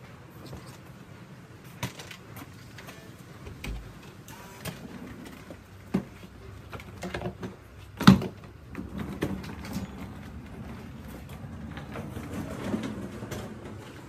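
A hotel room door being unlocked with a key card and opened: light clicks and knocks, with one sharp, loud click about eight seconds in. After that comes a low rumble as a hard-shell suitcase is wheeled in over the floor.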